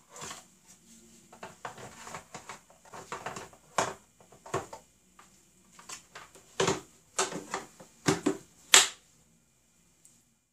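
Irregular sharp clicks and knocks, faint and sparse at first, then louder and coming a few a second from about four seconds in, the loudest one near the end.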